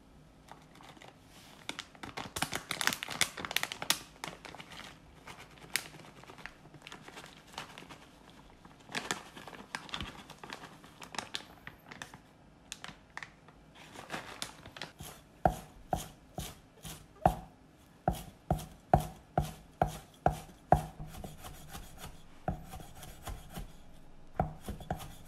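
Chef's knife chopping parsley on a wooden cutting board: a run of sharp, even chops about two a second in the second half. Earlier there are stretches of rustling and scraping from handling the food.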